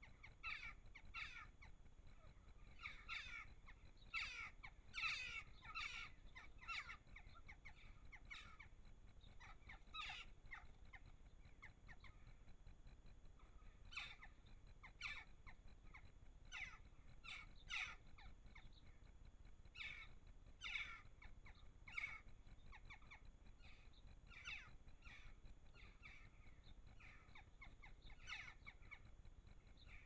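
A small flock of jackdaws calling: dozens of short, harsh calls from several birds, coming in irregular clusters that are loudest around four to six seconds in and again around twenty seconds in.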